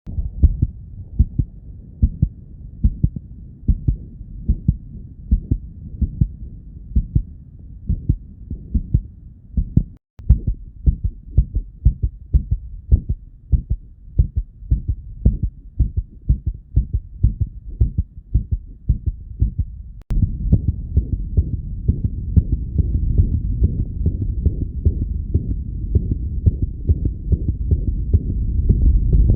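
Stethoscope recordings of dogs' hearts with myxomatous mitral valve disease: regular heartbeats with the whooshing systolic murmur of a leaking mitral valve. Three recordings of about ten seconds each follow one another, the murmur fainter in the first two and much louder in the third, where it fills the gaps between the beats.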